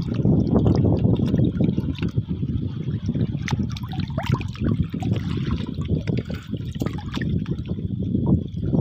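Lake water splashing and trickling, with many small irregular splashes and drips.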